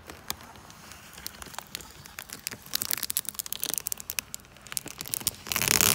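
Protective plastic film being peeled off a new headlight lens: a run of sharp crackles that grows denser, ending in a loud tearing rip near the end.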